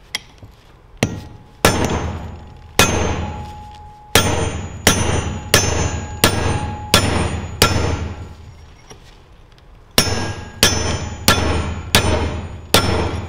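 Hammer striking a steel pin punch to drive the lock pins out of a mini excavator's track sprocket shaft, which is clamped in a vise. It is a run of sharp metallic strikes with a ringing tail, roughly one every two-thirds of a second, with a pause of about two seconds near the middle.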